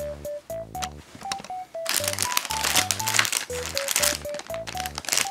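Thin plastic toy packaging crinkling and rustling as it is handled, starting about two seconds in, over background music with a simple plucked-sounding melody.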